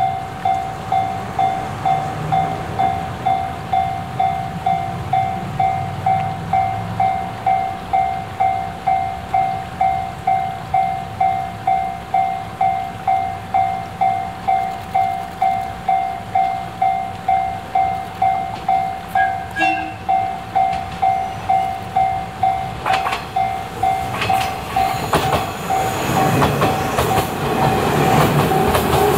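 A level crossing warning bell rings steadily at about one and a half strikes a second as a 455 series electric multiple unit approaches. A short horn note sounds about two-thirds of the way through. In the last few seconds the train's motors and wheels rise to a loud rush and clatter as it passes close by.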